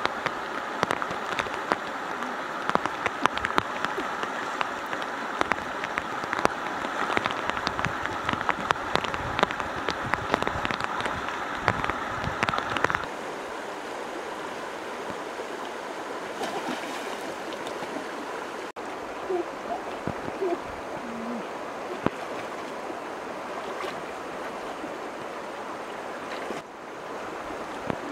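Fast-flowing river water rushing over stones, with frequent small splashes and spatters. About halfway through it changes to a softer, quieter flowing stream.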